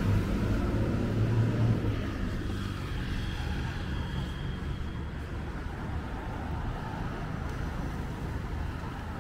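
An engine running close by, loudest in the first two seconds and then fading away, over a steady background hum.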